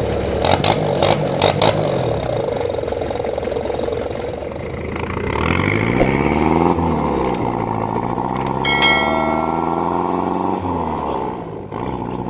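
Mitsubishi L300's 4D56 four-cylinder diesel running through a straight pipe with the muffler deleted: it is revved once about five seconds in and falls back to idle. A few sharp clicks come in the first two seconds, and a brief high-pitched tone sounds about nine seconds in.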